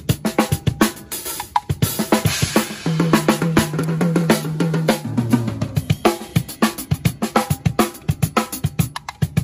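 Acoustic drum kit played fast in an African-style groove: quick snare, bass drum and hi-hat strokes, with a cymbal crash washing over the beat about two seconds in.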